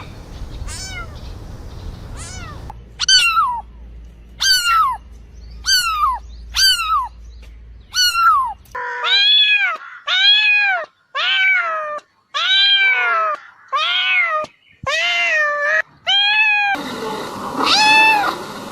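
Domestic cats meowing: a string of about seventeen separate meows from several spliced recordings. The first calls are short and fall steeply in pitch; from about nine seconds in they are longer and rise then fall.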